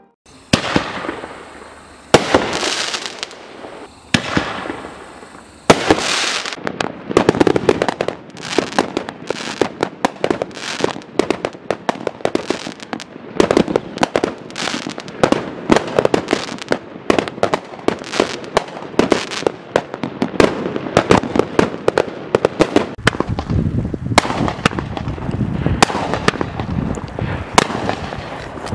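Dominator Air Aid multi-shot aerial firework firing. There are four separate shots in the first six seconds, each followed by a hiss. After that comes a rapid barrage of launches and bursts, several a second, that keeps going.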